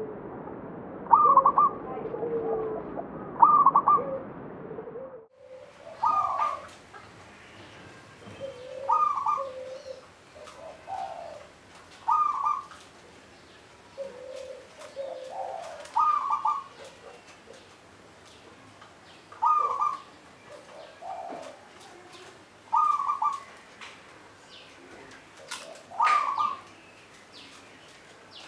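Local Javanese zebra dove (perkutut) cooing: a short phrase of quick notes repeated about every three seconds, nine times.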